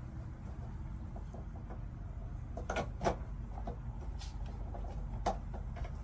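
A few sharp clicks and knocks from plumbing parts and tools being handled during a water heater pipe repair, over a steady low rumble.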